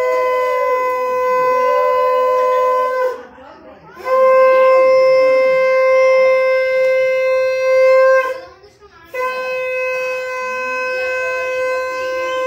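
Conch shell (shankha) blown in three long blasts at one steady pitch, each about four seconds, with short breaks between them: the customary conch blowing during puja worship. Early in the first blast a second, wavering tone sounds just above it.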